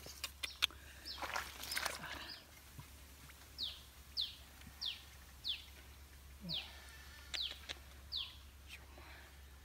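A bird calling over and over: about seven short, high whistles, each falling in pitch, spaced well under a second apart from about three and a half seconds in. Before them come a few sharp clicks, the loudest sounds, and a short burst of rustling noise in the first two seconds.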